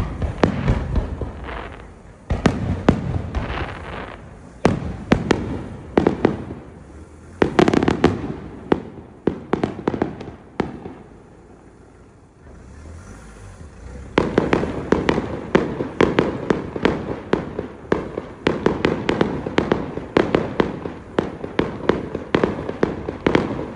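Fireworks display going off: a rapid series of bangs and crackling reports. There is a brief lull about halfway through, then a dense, fast run of crackling bangs to the end.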